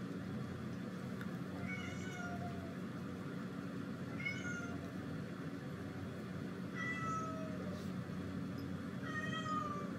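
A domestic cat meowing four times, about every two and a half seconds, each call short and falling slightly in pitch, over a steady low hum.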